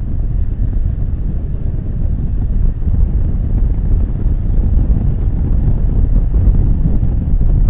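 Wind buffeting an outdoor camera microphone: a loud, unsteady low rumble with no bird calls standing out.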